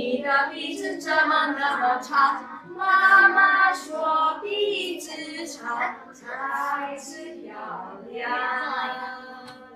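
Two women singing a song together in short phrases, with no instruments.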